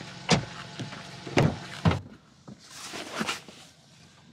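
Car doors being opened and shut: three sharp clunks within the first two seconds, then a softer rustling.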